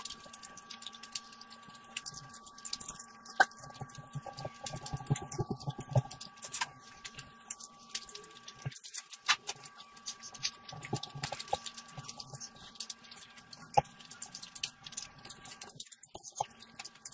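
Close-miked eating sounds: wet chewing, lip smacking and many sharp little mouth clicks as chicken curry and rice are eaten by hand, with a thicker run of chewing about four to six seconds in.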